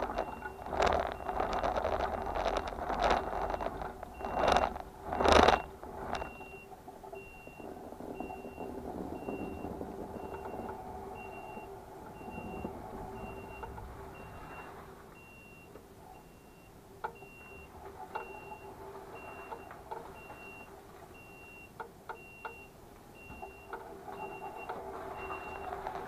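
Mobility scooter's reverse warning beeper sounding a steady, evenly repeated high beep, about one and a half beeps a second, as the scooter backs up, over a steady low hum. Loud gusts of wind on the microphone in the first six seconds.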